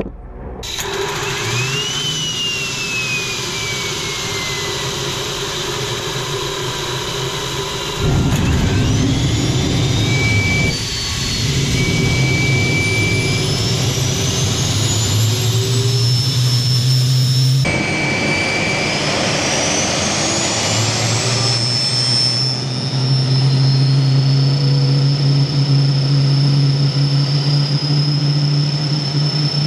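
Small homemade turbojet engine starting up and spooling: a turbine whine sweeping in pitch, mostly rising, over a steady roar. The sound jumps abruptly twice, at about 8 and 18 seconds in.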